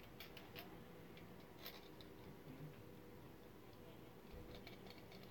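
Faint metallic clicks of needle-nose pliers on the brass nut of a speaker binding post as it is tightened onto the plate: a few scattered ticks, with a quick cluster of them near the end.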